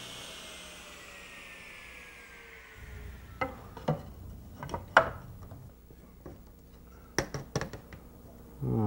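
Table saw blade spinning down after being switched off, its whine falling steadily in pitch and fading. After about three seconds come several sharp wooden knocks and taps as the cut test piece is handled and fitted against a drawer opening.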